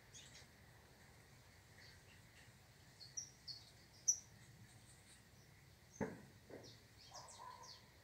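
Small birds chirping faintly in short, high chirps, with a quick run of them around three to four seconds in and more near the end. A single sharp knock sounds about six seconds in.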